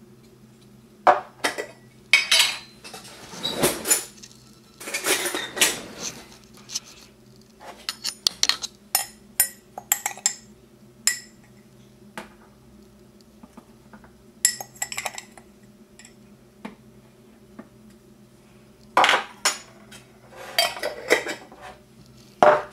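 Kitchen handling sounds as spices are measured into the idle food processor: sharp clinks, taps and short scrapes of a metal-lidded spice jar and utensils against the plastic bowl. They come in irregular clusters with pauses in between.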